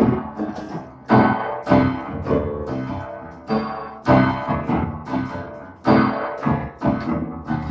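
Electronic keyboard played with a piano sound: chords struck one after another at an unhurried pace, each left to ring and fade before the next.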